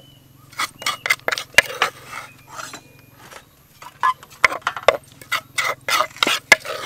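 A wooden pestle and a metal spoon knocking and scraping against a stone mortar as green herb paste is pounded and scooped out, a quick run of sharp clinks and knocks with a short pause midway.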